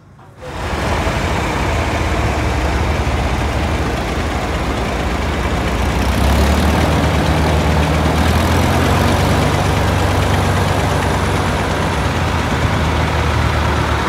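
A large vehicle engine idling steadily, a low hum under a broad rumble. It comes in about half a second in, and the low hum grows stronger about six seconds in.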